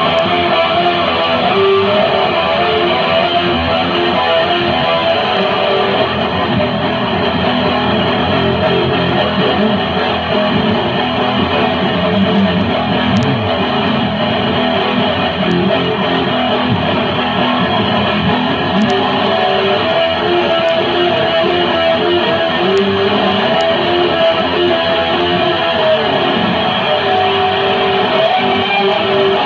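Guitar music played continuously, with strummed chords.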